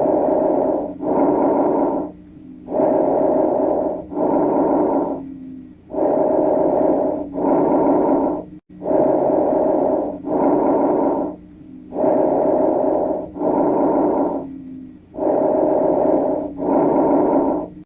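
A recorded lung sound of the kind heard through a stethoscope: about six breaths, each an inhale and an exhale of roughly a second apiece, with a short pause between breaths.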